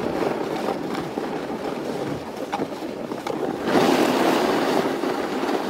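Rushing noise of skiing: skis sliding and scraping over packed snow, mixed with wind on the microphone. It gets louder and harsher about four seconds in.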